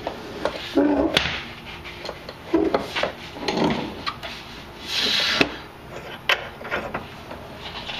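Pitman arm puller's forcing screw being turned with a breaker bar and socket: scattered metal clicks and short creaking and rubbing sounds as the screw is tightened against the pitman shaft.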